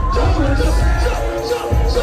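Live reggae band music: a steady bass and drum beat under held melody notes, with some singing.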